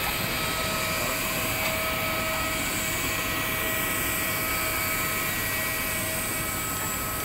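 Steady rushing noise with a high, even whine from a jet airliner running on the airport apron.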